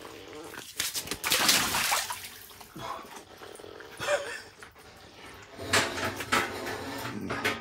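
Water splashing in an ice-fishing hole as a northern pike is let go, loudest about a second and a half in.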